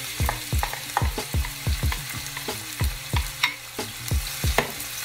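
Wooden spatula stirring and scraping chopped onion and scallion around a stainless steel pan, about three strokes a second, over the steady sizzle of the vegetables sautéing.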